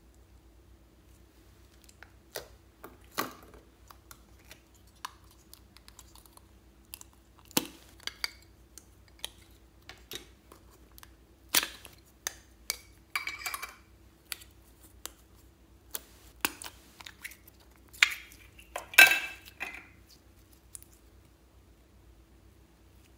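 Slime being stretched and squished by hand, with small plastic slime tubs handled: scattered sharp sticky clicks and small pops, and two short crackly clusters, the louder one late on.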